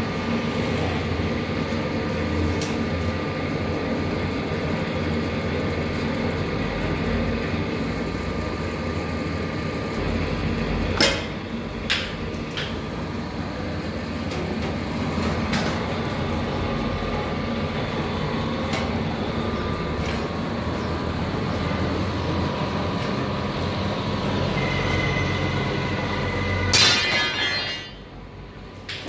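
Workshop machinery running steadily with a low hum and a few steady tones, with a few sharp metal knocks in the middle.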